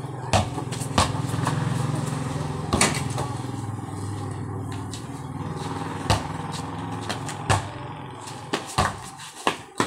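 A vehicle engine running steadily, loudest in the first few seconds and then slowly fading, with a basketball bouncing on concrete in several sharp knocks over it.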